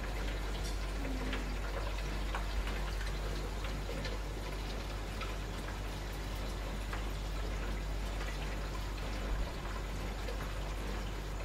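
Aquarium water trickling and bubbling from the tank's aeration, with scattered small ticks over a steady low hum.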